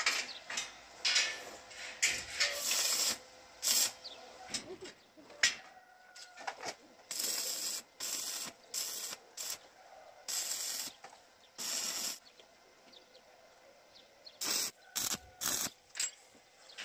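Stick (arc) welding on steel bar: a series of short tack welds, each a burst of crackling, hissing arc noise lasting about a second, with a few sharp knocks in between.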